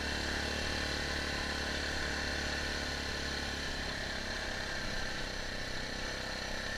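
Yamaha Grizzly 660 ATV's single-cylinder four-stroke engine running steadily at low, even revs.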